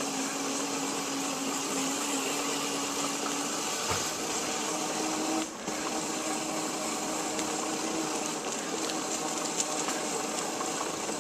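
A small motor running steadily with a hum and a hiss. The hum steps up slightly in pitch about four seconds in, and the sound cuts out for a moment a little later.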